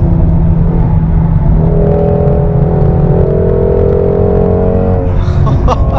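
Shelby GT350R's 5.2-litre flat-plane-crank V8 heard from inside the cabin, pulling hard at steady high revs along the track, with a brief break in the sound near the end.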